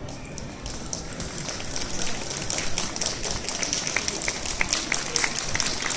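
Applause from a small audience: scattered hand claps that start about a second in and grow fuller.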